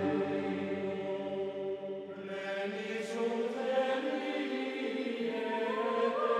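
Background music of slow, long held choir-like chords, moving to a new chord about two seconds in.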